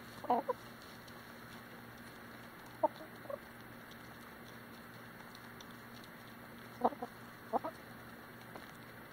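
Chickens clucking in short low calls of one to three notes: a cluster just after the start, a pair about three seconds in, and another group about seven seconds in. Faint ticks of beaks pecking at the dirt run between the calls.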